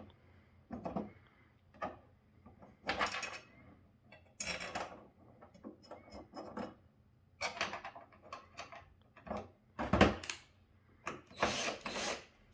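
Hands fitting a metal TV mount bracket and its bolts to the back of a TV: irregular scrapes and clinks, with one sharp knock about ten seconds in.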